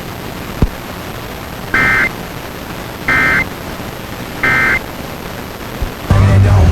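Emergency Alert System end-of-message signal: three short bursts of SAME digital data tones, about a second and a half apart, over FM radio hiss, marking the end of a required weekly test broadcast.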